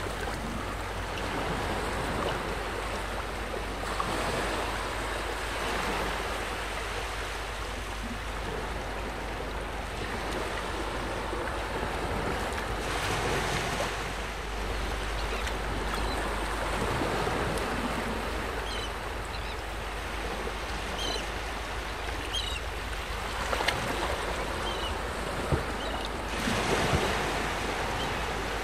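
Small waves lapping steadily at the water's edge, with wind on the microphone. A few faint high chirps come in the second half, and a few short knocks near the end.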